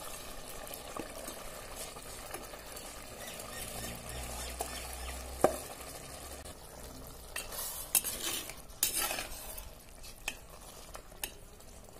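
Biryani rice being stirred with a perforated steel ladle into boiling prawn masala in a clay pot: a low steady bubbling with a few sharp clicks, then a run of scraping strokes of the ladle about two-thirds of the way in.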